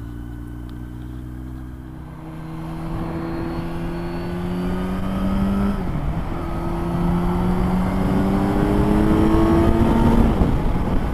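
Kawasaki Z900's inline-four engine accelerating: its pitch climbs, dips with an upshift about six seconds in, then climbs again until the throttle eases near the end. Wind and road noise run underneath.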